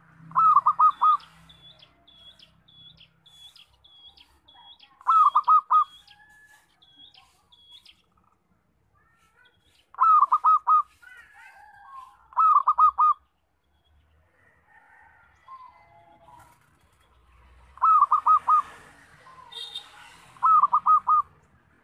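Zebra dove (local perkutut) cooing: six short phrases, each a quick run of four or five rolling notes, spaced a few seconds apart. A faint, thin, high chirping ticks along behind the first few phrases.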